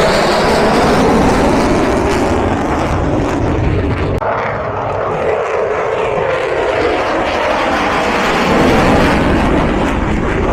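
Loud, continuous jet roar of an F-22 Raptor's twin turbofan engines during its air show demonstration. The roar shifts about four seconds in and is loudest near the end.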